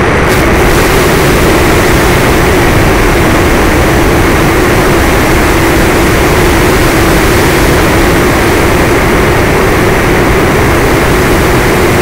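The electric motor and propeller of an FPV model plane in cruising flight, heard from the onboard camera: a steady, loud drone with a hum near the middle, buried in rushing wind noise.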